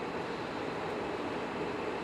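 E5 series Shinkansen running noise heard from inside the car: a steady rushing rumble of the train travelling along the line, with no motor whine standing out.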